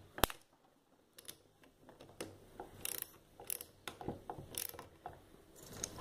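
Small socket ratchet wrench clicking in short, irregular strokes as it tightens the valve-plate bolts on a refrigerator compressor's cylinder block.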